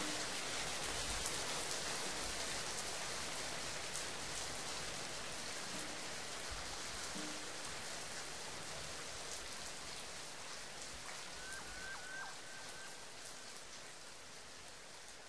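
Steady rain falling, a dense patter of drops, slowly fading out. A few short high chirps come about three-quarters of the way through.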